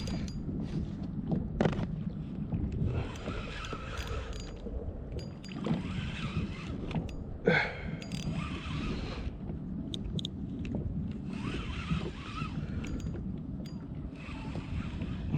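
Water swishing and lapping around a kayak in repeated surges every few seconds, over a steady low wind rumble on the microphone, with a couple of sharp knocks against the hull or gear.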